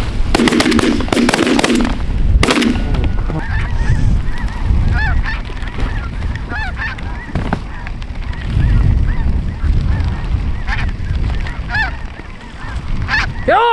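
Snow geese honking: short, high calls repeated over and over. A loud burst of noise comes in the first two seconds and another briefly about two and a half seconds in.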